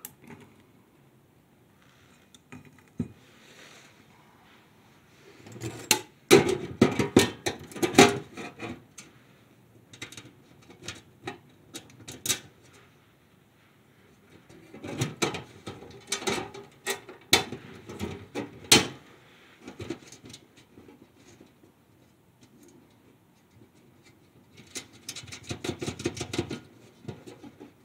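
Light metallic clicking and rattling in three spells separated by quiet stretches: small screws and thin sheet-steel stove parts being handled as a door is fitted to a tent stove.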